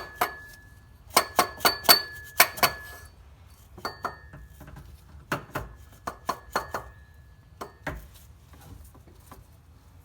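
Runs of sharp metallic taps, each leaving a short ringing tone, about a dozen strikes in the first eight seconds. The new A/C compressor pulley is being knocked further onto its shaft, struck through a socket with a hammer.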